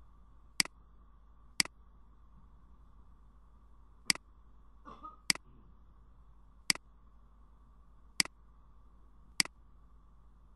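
Computer mouse button clicking seven times, sharp single clicks spaced unevenly about one to two and a half seconds apart, over a faint steady hum.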